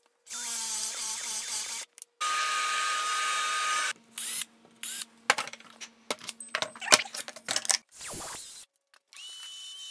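Cordless drill boring hinge holes into an oak board through a hinge jig: two steady runs of a couple of seconds each, then a string of clicks and knocks, and a short run near the end.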